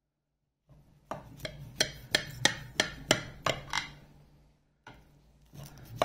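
A metal knife clicking against the glass baking dish while cutting a blueberry buckle: a run of sharp clicks about three a second, starting about a second in, pausing for about a second and a half, and starting again near the end.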